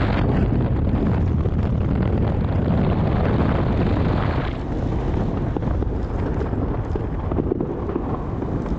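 Many fireworks going off at once, a dense rumble and crackle of bangs, with wind on the microphone. About halfway through the hissing upper crackle falls away, leaving scattered separate pops over the rumble.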